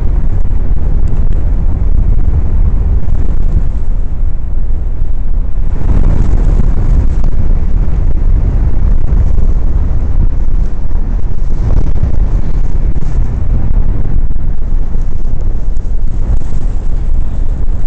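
Wind buffeting the camera microphone on a paraglider in unpowered flight: a loud, steady low rumble that swells in gusts now and then.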